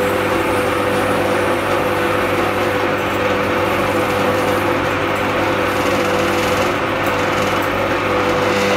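Benchtop drill press motor running with a steady hum and a high tone, its bit drilling out a stripped M4 thread hole in an aluminium Dellorto carburetor body to make room for a Heli-Coil insert.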